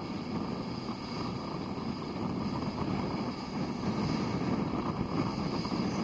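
A ferry underway at sea, heard from its bow rail: a steady low rush of wind on the microphone mixed with water running along the hull.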